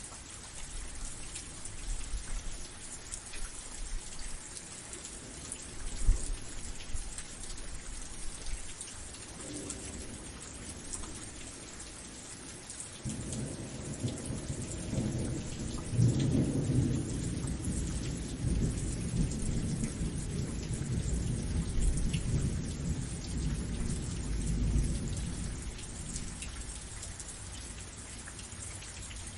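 Steady rain falling, with a long roll of thunder starting a little before halfway and rumbling for about twelve seconds before it fades.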